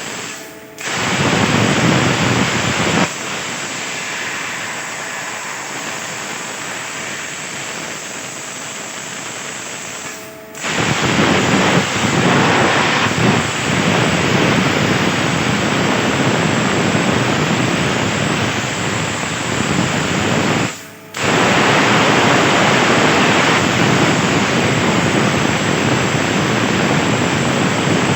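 CNC plasma cutter's arc hissing steadily as it cuts 1.5 mm steel sheet, with three short breaks where the arc stops and restarts.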